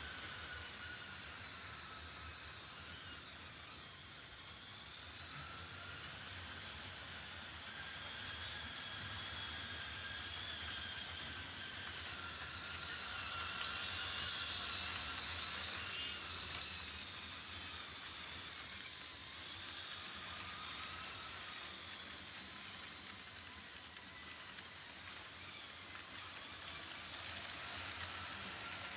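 Pair of HO scale Chessie System GP40 model locomotives running along the track, a high wavering motor-and-gear whine over a hiss of wheels on rail. It grows louder and peaks about thirteen seconds in as the locomotives pass close by, then fades as the freight cars roll past.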